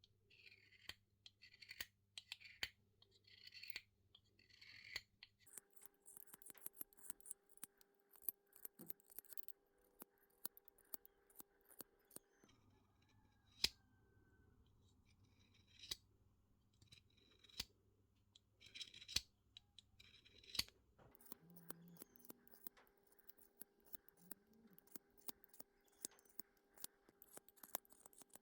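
Faint hand work on metal parts: runs of short scraping strokes, scattered light clicks and taps of tools, over a low steady hum.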